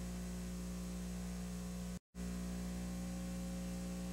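Steady electrical mains hum with hiss from an old video recording's audio track, with no commentary. It cuts out to silence for a split second about two seconds in, like an edit in the tape.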